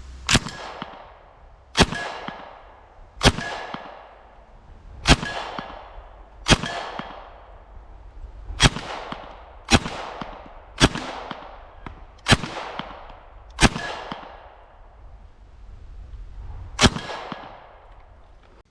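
Thompson M1928A1 submachine gun in semi-auto .45 ACP fired single shots at a steady, unhurried pace, eleven shots about one to two seconds apart, each trailing off in a long echo.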